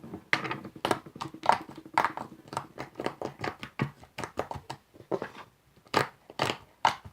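Soap-and-white-glue slime being poked over and over against a surface: a run of irregular sticky clicks and small snaps.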